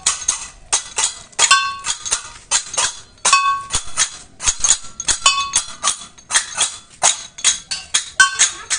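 Balinese gamelan percussion: metal cymbals and small gongs struck in a fast, uneven rhythm, about three to four strikes a second, some hits ringing with a clear pitched tone.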